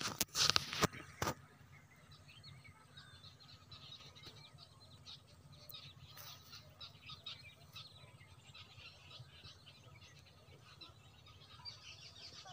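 Small birds chirping in the countryside, many short high chirps scattered throughout over a steady low rumble. A few loud knocks from the phone being handled come in the first second or so.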